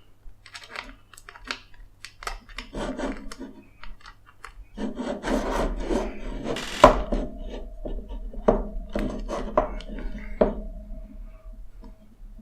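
Hands handling small acrylic printer parts and a metal screw and washer: scattered light clicks and taps, with a stretch of rubbing and scraping in the middle and one sharper click about seven seconds in.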